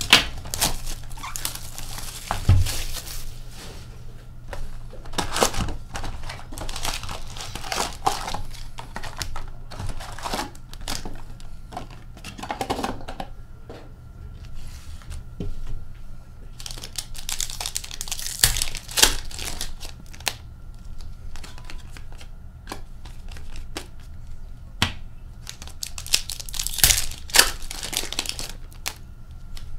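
Hockey card packs being torn open and their foil wrappers crinkled, in repeated bursts of rustling and tearing, with cards handled between them.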